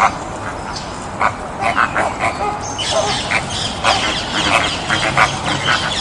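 Flamingos calling: a series of short, nasal honks in quick succession. The calls grow denser about three seconds in.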